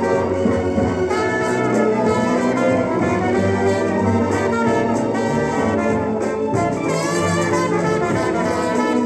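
Brass-led music with trumpets and trombones, playing continuously from a stereo demonstration LP on a turntable.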